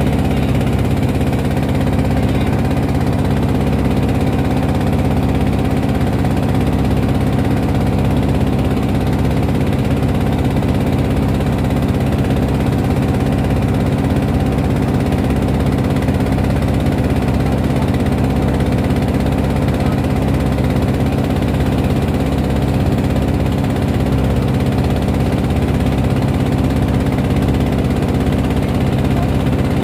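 Engine of a wooden motorboat running steadily under way, a constant low drone heard from on board.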